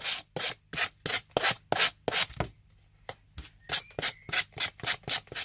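A hand sanding block scraping in quick short strokes along the edge of heavyweight paper glued to thick greyboard, sanding off the overhanging paper. The strokes come about three or four a second, with a brief pause a little past halfway. The sandpaper is one she thinks could do with replacing, though it is still cutting.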